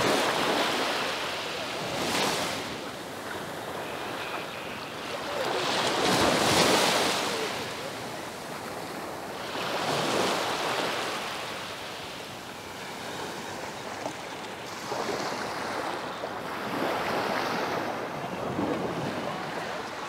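Small sea waves breaking and washing up the sand at the water's edge, a hissing surge every two to four seconds, the loudest about six seconds in.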